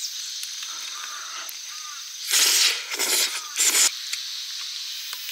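Steady chirring of insects in the background. Three short, loud, noisy bursts about two to four seconds in come from eating pasta with a fork off a metal camping plate.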